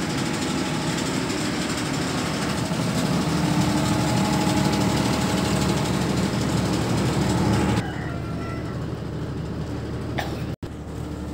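Diesel generator set running with a steady engine drone. The sound drops to a quieter hum about eight seconds in.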